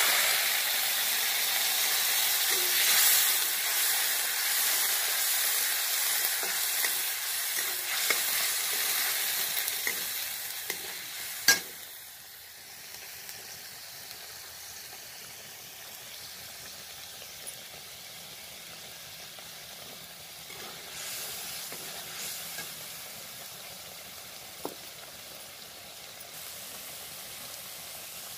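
Onions and masala frying in oil in a pan, sizzling loudly just after sauce goes in, with stirring. A single sharp knock about eleven and a half seconds in, after which the sizzle settles to a quieter, steady level.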